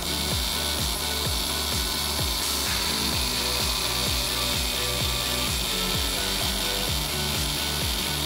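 A DIY CNC pneumatic engraving machine engraving a plate: a steady high noise from the engraving head over the low hum of the stepper motors driving the ball-screw axes, which shifts pitch in steps as the moves change.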